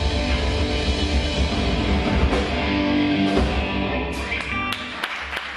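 Live rock band, electric guitars, bass and drum kit, playing the last chord of a song, which rings and fades about four seconds in. A few handclaps from the audience start near the end.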